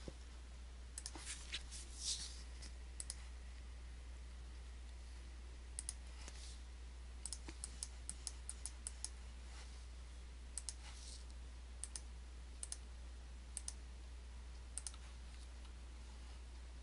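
Computer mouse buttons clicking at irregular intervals, some clicks in quick pairs, over a faint steady low hum.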